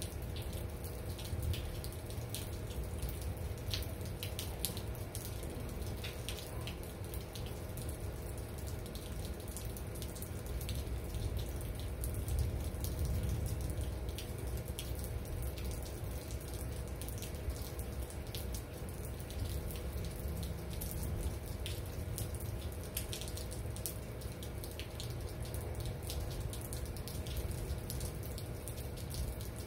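Steady rain with water running and dripping, and many sharp ticks of drops striking close by. A faint steady hum lies underneath.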